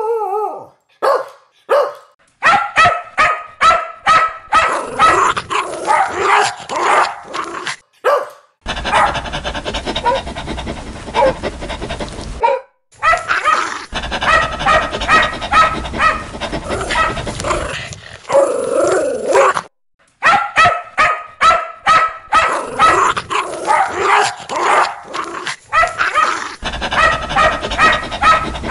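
Dogs barking fiercely and loudly in quick runs of barks. Several separate barking recordings follow one another, each ending in an abrupt cut.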